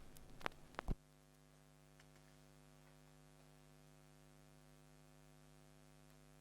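A few sharp clicks in the first second, then a faint steady electrical mains hum.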